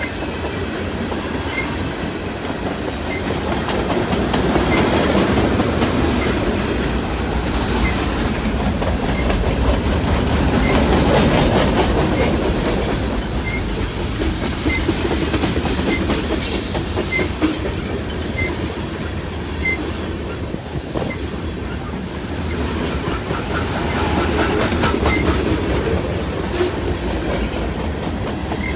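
Freight train cars rolling past, a steady heavy rumble that swells and eases, with wheels clicking over rail joints at a regular pace.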